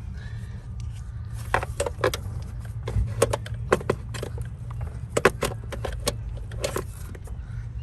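Metal hand tool clinking and scraping against engine parts deep in a BMW engine bay as it is worked down toward the starter solenoid, in irregular sharp clicks, over a steady low hum.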